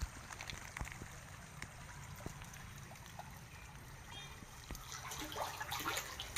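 Faint trickling water with light splashing that builds near the end as a hooked catfish churns the surface on the line.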